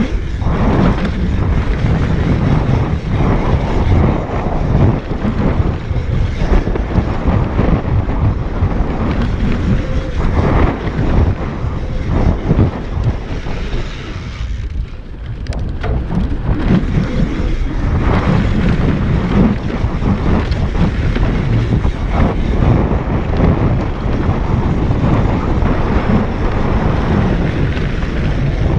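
Wind buffeting the microphone of a handlebar-mounted action camera on a mountain bike descending a dirt trail, mixed with the rumble of tyres and the rattle of the bike over bumps. It eases off briefly about halfway through.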